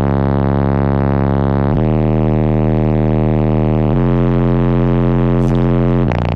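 Car audio system's subwoofers playing deep bass at high level: long held low notes that change pitch about every two seconds.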